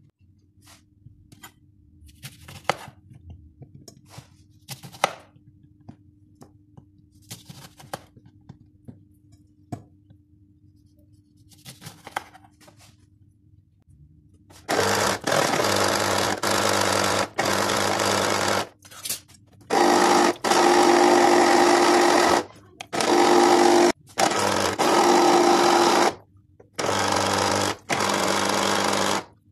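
Electric citrus juicer motor running in about five bursts of a couple of seconds each from about halfway in, starting and stopping as orange halves are pressed onto the spinning reamer and lifted off. Before that, only a few light clicks and knocks.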